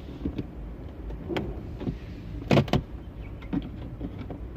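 Scattered clicks and knocks of a GPS antenna and its cable being handled and shifted into place inside a car, with two louder knocks about two and a half seconds in.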